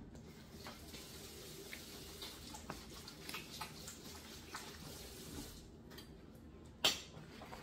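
Quiet eating: faint scattered clicks and taps of a fork on a plate, with one sharper click near the end.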